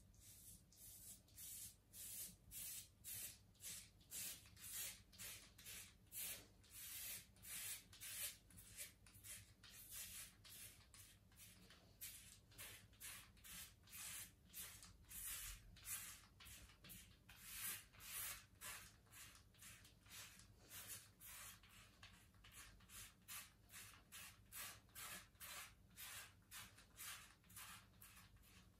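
Cartridge razor scraping through four weeks of stubble on a lathered scalp in short, quick, faint strokes, about two a second.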